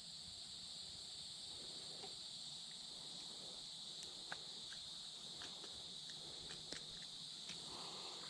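Faint, steady chorus of insects, a high even trill with no breaks, with a few soft clicks scattered through it.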